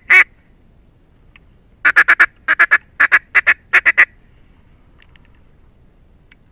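Loud, nasal duck quacks: one at the very start, then a quick run of about a dozen short quacks in clusters of two to four, which stops about four seconds in.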